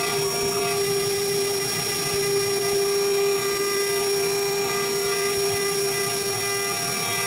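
Spindle of a CNC wood router and PCB engraving machine running at high speed with a steady high whine that keeps one pitch throughout.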